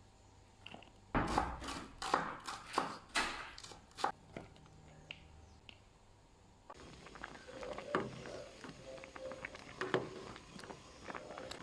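Household objects being handled: a quick run of sharp knocks and clatters for about three seconds, then, after a short lull, softer rustling with scattered light knocks.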